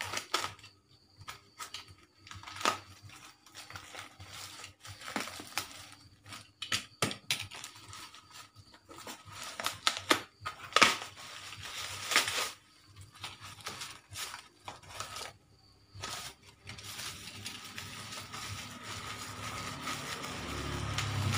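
A taped parcel being cut and torn open by hand: ripping of packing tape and wrapping, crinkling and scrunching of the packaging, and sharp clicks in between, in irregular bursts with short pauses.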